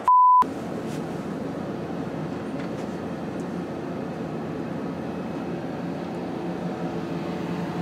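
A half-second pure electronic beep, then a steady low rumbling hum.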